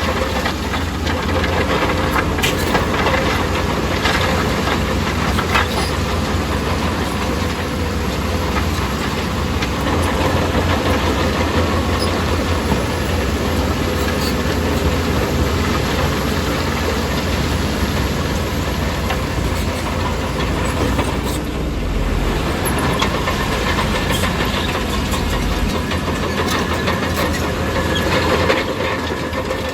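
Bulldozer diesel engine running steadily under load, with scattered clanks from its steel tracks and pushed rock.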